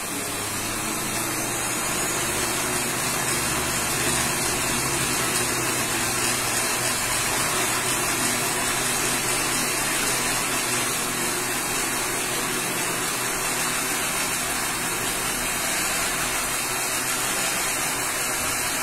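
Countertop blender running steadily, its motor puréeing a thick walnut sauce (nogada).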